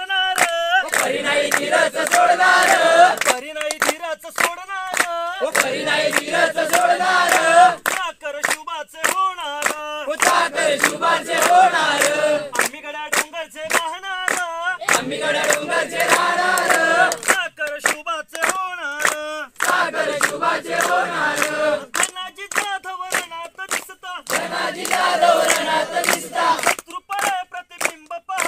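A group singing together, with lines from one clearer voice alternating with fuller passages from many voices, over steady rhythmic hand claps.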